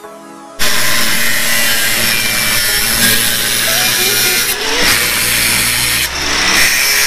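Angle grinder cutting a metal exhaust pipe, starting abruptly about half a second in with a loud, steady grinding noise that eases briefly twice in the second half as the disc comes off the metal.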